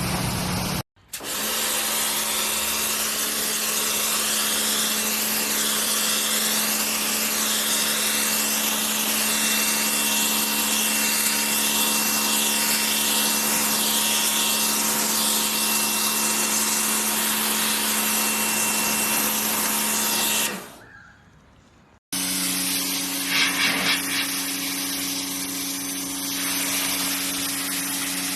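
Pressure washer spraying: a steady hiss of the water jet over the even hum of its motor and pump. It fades out about twenty seconds in, and after a short gap another pressure washer starts with a different, lower hum.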